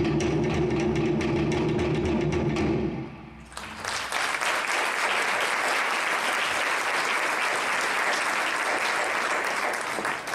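Polynesian drum ensemble of wooden slit drums and hand drums beating a fast, even rhythm, which stops about three seconds in. Then audience applause that fades near the end.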